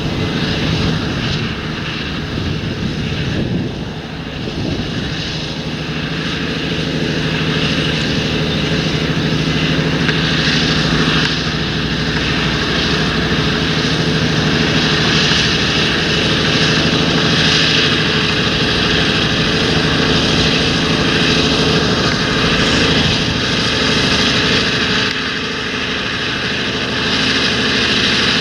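Large John Deere tractor's diesel engine running steadily under field working load, with a constant engine note and a broad rushing noise, dipping slightly twice.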